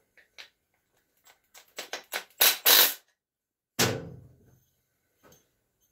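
Tools and metal parts being handled on a workbench: scattered clicks, then a quick run of loud knocks and clatter about two to three seconds in, and one heavier clunk near four seconds whose low ring dies away over about half a second.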